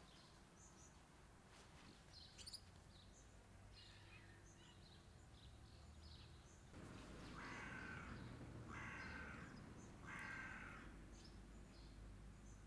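A crow cawing three times, each caw about half a second long and about a second apart, starting a little past the middle. Small birds chirp faintly throughout.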